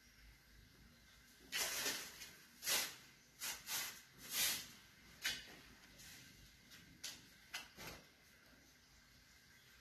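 A hand stroking and rubbing a tabby cat's fur: a run of about nine short, breathy swishes, some in quick pairs, then stopping about two seconds before the end.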